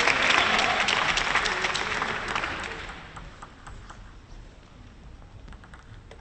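Arena crowd applauding and cheering after a point in a table tennis match, dying away over about three seconds, leaving a few faint scattered ticks.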